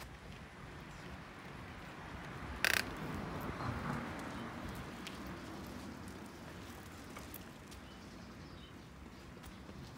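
A Shiba Inu's claws clicking and scuffing lightly on stone slabs as it steps about, with one sharp click just under three seconds in.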